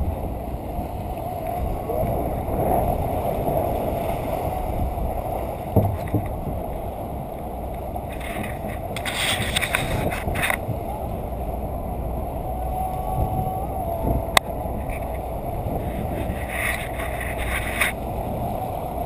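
Steady, muffled rush of wind and water around a small sailboat under way. Brighter hissy swells come about nine seconds in and again near the end, and sharp knocks sound near six seconds and fourteen seconds.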